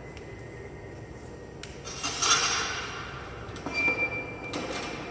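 Metal parts of a Tecweigh S5a feeder clinking and scraping as the hopper is worked loose, with the loudest scrape about two seconds in and a short high squeal near the middle.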